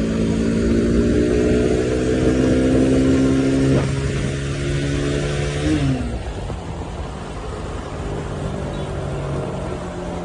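Bajaj Pulsar NS200 single-cylinder engine pulling at high speed, its note climbing slowly. About six seconds in the throttle is closed and the engine drops to a quieter, steady note.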